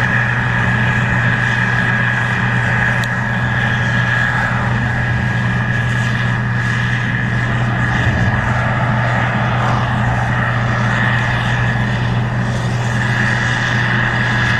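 Case IH 2388 Axial-Flow combine running steadily at work: a deep, even engine hum with a steady high whine over it.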